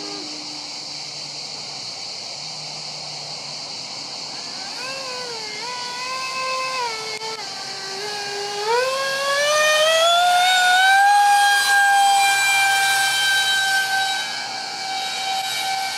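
Twin electric ducted fans of a Freewing Su-35 RC jet whining in flight. The pitch wavers up and down with the throttle, climbs steeply about halfway through and holds high and loudest, then falls a little near the end. The fans are running on cheap shaft adapters with mounts shaken loose, which the owner blames for their vibrating screech.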